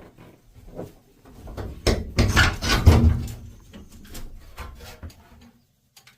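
Tool storage being handled: a run of clatters and knocks with low thuds, loudest about two to three seconds in.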